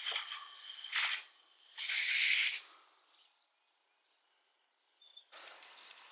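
Compressed air hissing from a rubber-tipped blow gun in short blasts, blowing out a small carburetor part: one blast ends just after the start, a brief one comes about a second in, and a longer one follows at about two seconds. A faint hiss rises near the end.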